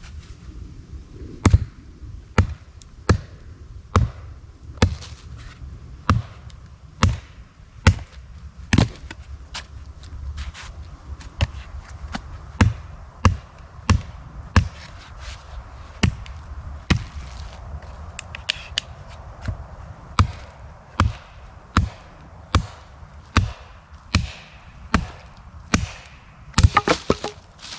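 A log being chopped with an edged tool: a steady run of sharp, evenly spaced strikes into wood, a little more than one a second, cutting around a knot.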